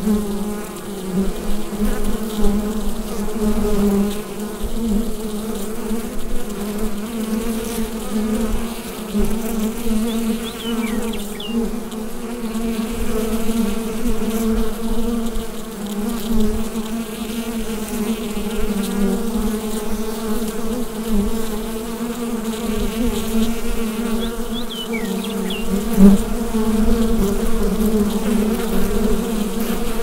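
A mass of honeybees buzzing together at a hive: a steady, dense drone that swells and dips slightly. There is a single sharp click near the end.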